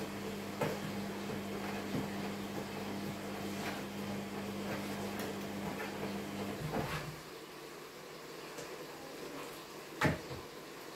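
Kitchen knife cutting raw meat on a wooden cutting board: scattered knocks and taps of the blade and meat on the board, the loudest about ten seconds in. Under them a steady low hum cuts off about seven seconds in.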